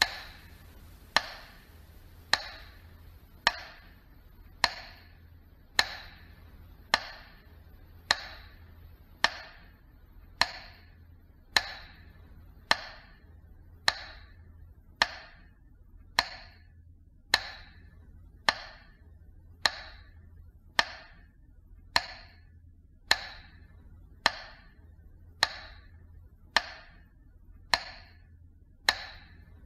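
Metronome ticking slowly and evenly, a bit under one beat a second, each tick ringing briefly over a faint low hum. This is the metronome beat of the Victory Day minute of silence.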